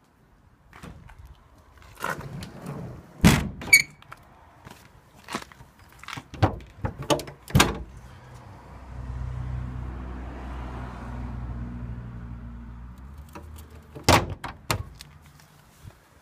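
Clunks and knocks from handling the cab of a 1979 Dodge W200 Power Wagon Club Cab: several sharp thunks and rattles, the loudest a few seconds in and again about a second apart. A door shuts with a heavy thunk near the end. A steady low rumble runs for several seconds in the middle.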